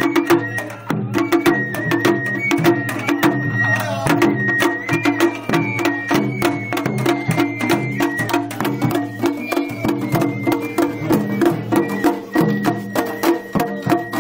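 Japanese festival hayashi music played on a float: a high flute melody over rapid, steady drum and gong strikes.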